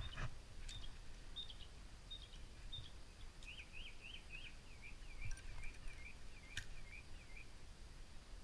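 A small bird chirping: a few short high chirps, then a quick run of rising and falling notes lasting about four seconds, over a low rumble of wind and outdoor noise. Two sharp clicks are heard, one at the start and one past the middle.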